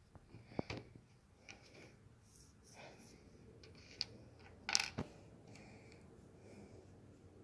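Small plastic LEGO pieces being handled and set down on a wooden table: a few light clicks and taps, the loudest a short cluster about five seconds in.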